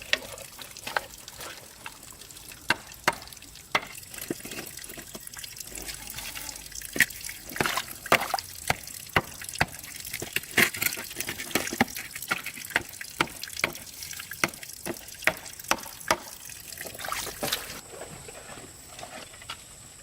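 Water dripping and trickling: irregular sharp drips, about one or two a second, over a faint wet hiss that drops away near the end.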